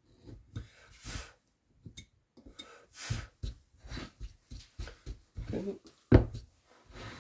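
Hand carving tool cutting into wood: a run of short, irregular scraping and slicing strokes, with a sharp knock about six seconds in.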